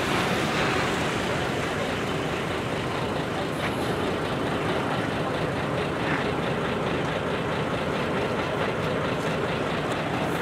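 Steady motor-vehicle noise: a small car drives past close by at the start, and truck engines run on behind it.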